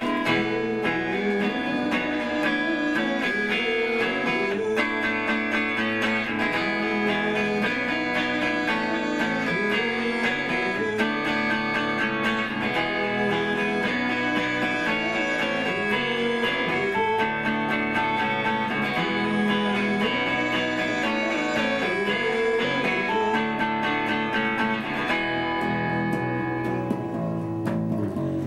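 Live band guitar playing an instrumental passage of picked and strummed notes, with no singing, starting at once and running steadily.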